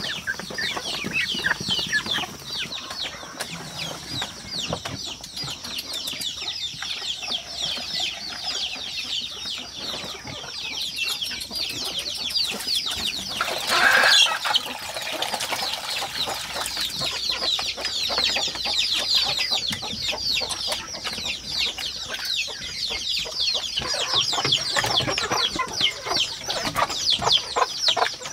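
A flock of ducklings peeping continuously in rapid high-pitched falling chirps, with hens clucking among them. A brief louder call stands out about halfway through.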